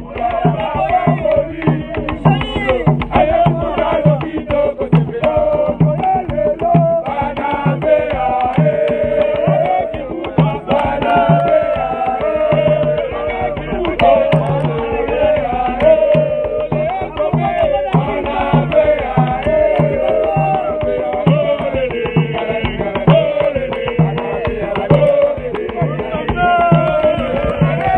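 Music with a steady drum beat, about two beats a second, and a melody gliding up and down over it.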